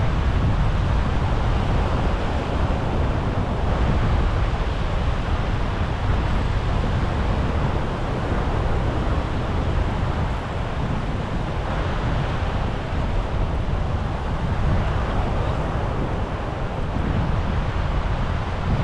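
Wind buffeting the microphone over the steady rush of breaking surf, slowly swelling and easing.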